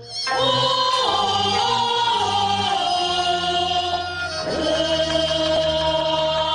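Teochew opera aria: a solo voice sings a long, sliding line over the opera's instrumental accompaniment. The voice comes in after a brief pause.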